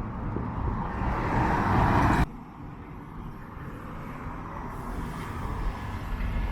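Street traffic: a passing vehicle grows louder for about a second and then cuts off abruptly. A quieter, steady hum of traffic follows.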